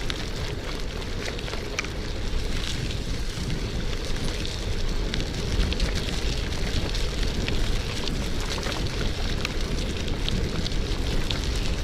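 Wind rumbling on the microphone while riding a bicycle along a wet dirt road, with tyre noise and many scattered small clicks and crackles.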